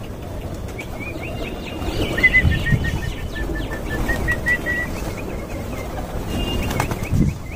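A flock of domestic pigeons flapping their wings as several birds take off and land, with a few louder wing thumps. A bird chirps a quick run of about ten short high notes partway through.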